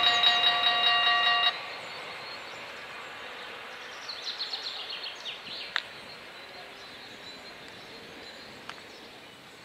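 Level-crossing warning bells ringing rapidly, then cutting off about a second and a half in, the sign that the train has cleared and the barriers are starting to lift. After that there is quiet outdoor background with a brief run of high chirps a few seconds later.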